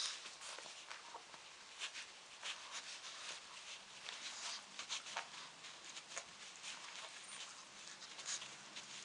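Two Shih Tzus gnawing on small hard chews: irregular faint crunching and clicking of teeth, several times a second.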